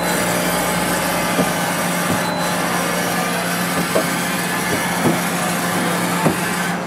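Steady hum and hiss of running machinery, with a constant low tone and a few faint clicks.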